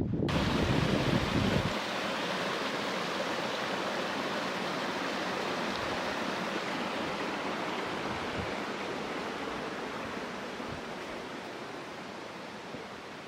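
Steady rushing of running water from a stream. Wind rumbles on the microphone for the first second or two, and the rushing fades gradually toward the end.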